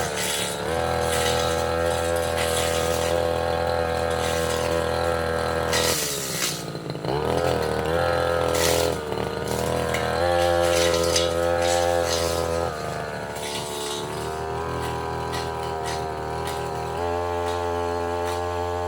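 Tasco 33 Pro brush cutter engine running at high revs while cutting small saplings and roots. About six seconds in, the pitch dips, then climbs back over the next couple of seconds.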